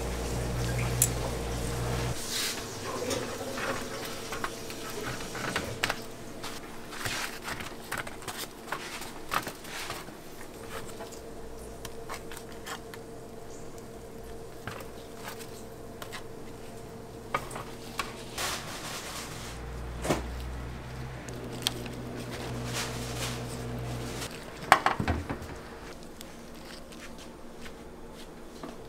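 Burger-stall food-prep sounds: metal tongs working on a hot griddle with sizzling at first, then a spoon scraping sauce onto buns and the clicks and knocks of utensils against stainless-steel trays, over a steady low hum. One sharper knock stands out near the end.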